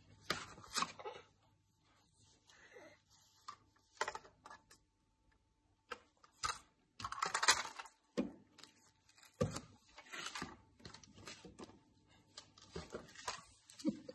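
Irregular light knocks, taps and rustles of a toddler handling plastic toys and patting at a windowsill and window, with a longer, louder clatter about seven seconds in.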